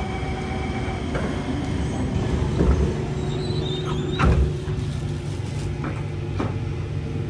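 Kawasaki C151 metro train heard from inside the carriage: a steady low running rumble, with a low hum that settles in about three seconds in and several knocks and clunks, the loudest about four seconds in.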